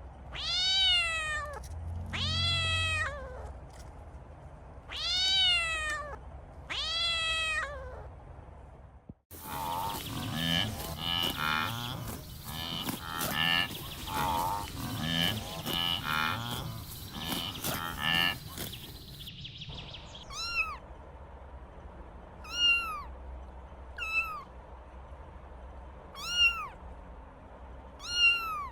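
Kittens meowing: four long mews, each rising then falling in pitch. After a sudden cut comes a busier stretch of many overlapping cries with clicking, then a run of short, high-pitched mews every second or two.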